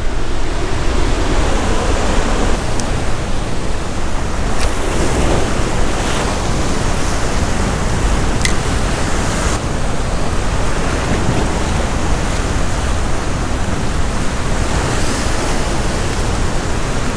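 A set of ocean swell surging and breaking against a rock ledge, a loud, steady wash of surf.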